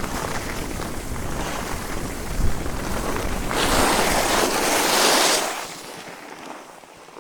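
Skis sliding on snow with wind rumbling on the microphone, then a loud hissing scrape of the skis from about three and a half seconds in that lasts about two seconds and dies away, leaving the sound much quieter.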